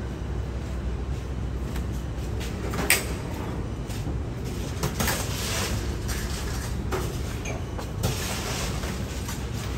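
Roti canai dough being handled and folded on a steel counter, with a few sharp knocks, the loudest about three seconds in, over a steady low hum.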